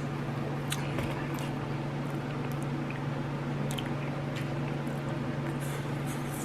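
Quiet chewing, with scattered small clicks of mouth and utensil, as a person eats. Under it runs a steady low hum.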